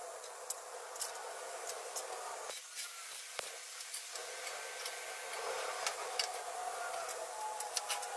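Scattered sharp metal clicks and taps over a steady hiss, as a locking C-clamp and steel fence-post parts are handled and set up.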